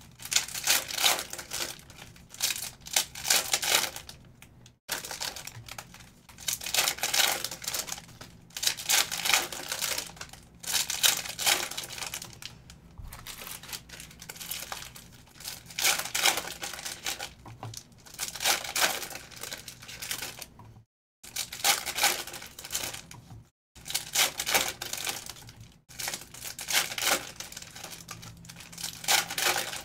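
Trading-card pack wrappers being torn open and crinkled, one pack after another, in repeated bursts a few seconds long with short pauses between.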